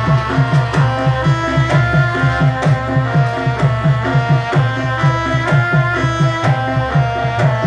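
Javanese reog gamelan ensemble playing a fast, steady rhythm for a warok dance: low drum strokes at about four a second over ringing gong-chime tones.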